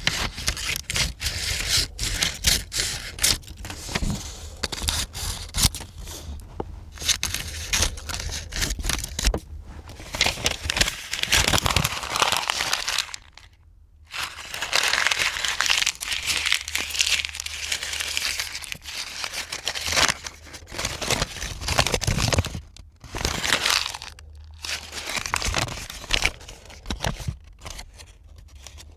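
Sheets of paper being cut, crumpled and torn by hand: dense crackling, snipping and ripping noises, with a brief pause about 13 seconds in.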